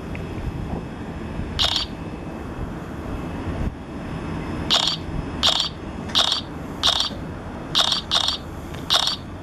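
South Western Railway Class 450 electric multiple unit running out along the platform with a steady low rumble. A run of short, sharp, high clacks starts about halfway through, several of them in close pairs.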